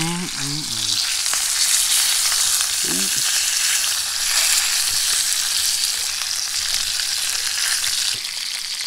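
Splake fillet frying in butter in a pan, sizzling steadily with the skin side browning.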